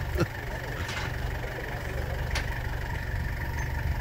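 An engine idling steadily, a low even hum, with one short click about two and a half seconds in.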